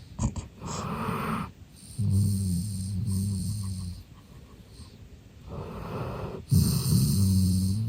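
Golden retriever snoring in deep sleep: twice a breathy rush of breath, each followed by a longer low, buzzing snore.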